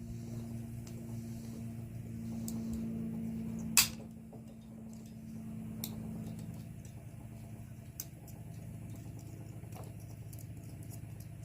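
Hand tools and loose parts clicking as an aluminum washing-machine motor is broken apart: one sharp click about four seconds in, and a couple of fainter clicks later. Under them runs a steady low hum.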